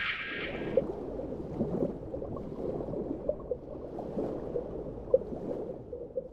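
Underwater water ambience: soft gurgling and bubbling with scattered small pops, fading out near the end. It follows the last of the electronic soundtrack, which stops under a second in.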